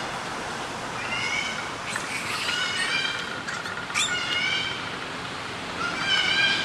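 Baby macaque crying: a string of high-pitched cooing calls, several in a row, each well under a second long.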